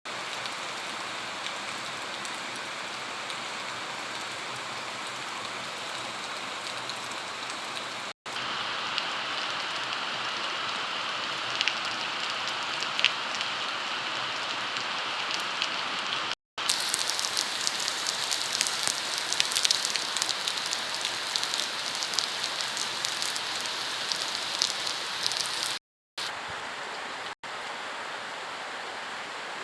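Monsoon rain falling steadily, a constant hiss with the patter of drops striking a surface, the drop hits thickest and loudest about halfway through. It cuts out for a split second several times.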